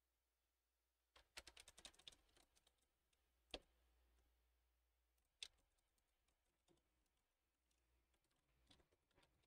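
Faint typing on a computer keyboard during text editing: a quick run of keystrokes about a second in, then single key presses scattered through the rest.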